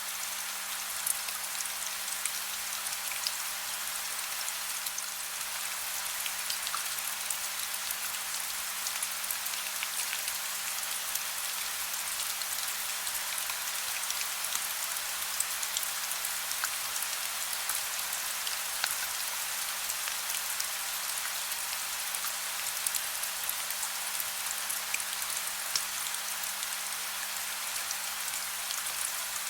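Soft rain falling steadily: an even hiss with scattered individual drops ticking, over a faint steady low hum.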